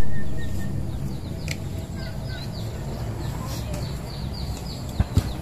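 Wind buffeting the microphone, loud at first and easing over about a second into a steady low rumble. A bird chirps a quick run of short high notes over it, and two dull thuds come close together near the end.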